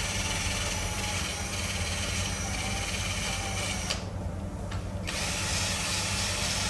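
A machine running steadily with a low hum and a hissing whine; the high part of the noise drops away for about a second near the middle, then returns.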